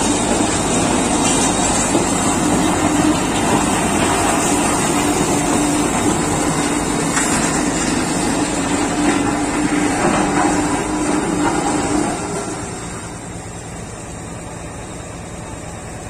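Three-roll road roller's diesel engine running steadily with a held hum as the roller moves over loose crushed stone. It grows fainter about twelve seconds in.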